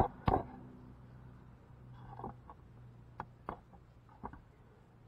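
A couple of knocks as the camera is handled and set down, then a faint steady low hum with scattered light clicks and taps.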